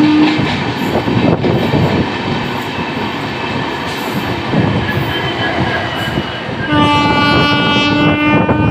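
A locomotive horn sounds a steady blast at one pitch that stops just after the start, leaving the clatter of a moving train's wheels over the rail joints. Near the end the horn sounds again in a long, steady blast.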